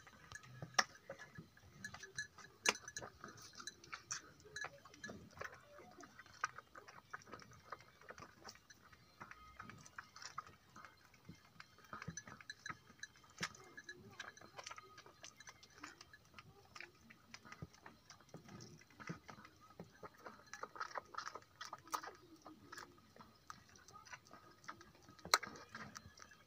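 Calf suckling at a cow's teat: quiet, irregular wet smacking and clicking from its mouth.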